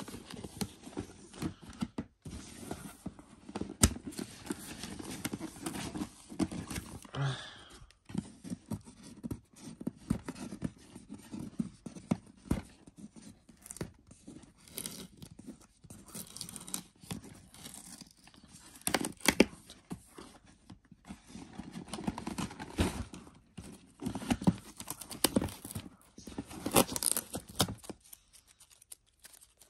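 Hands handling a cardboard shipping box and peeling and picking at the packing tape on its lid: scattered scrapes, taps and tearing of tape.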